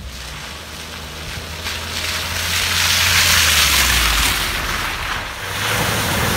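Suzuki Jimny 4x4 on the move: a low engine hum under a rushing noise of tyres and wind that swells to its loudest around the middle, then eases off.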